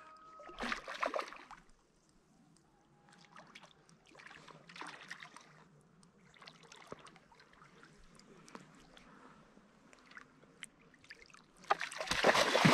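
Water sloshing and splashing in a few short irregular bursts, the loudest near the end.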